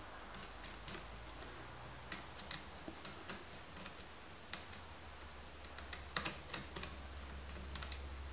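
Faint scattered clicks and ticks of a small screwdriver working out the single screw that holds a laptop's WWAN (3G) card, with a few sharper clicks about six seconds in and again near the end.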